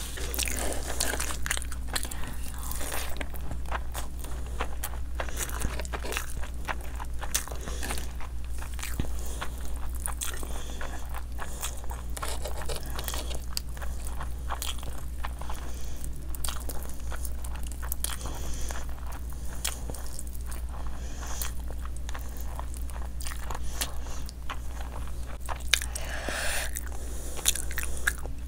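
A person eating rice, curry and fish by hand with the mouth close to the microphone: continuous chewing and biting full of small sharp clicks and crunches, over a steady low hum.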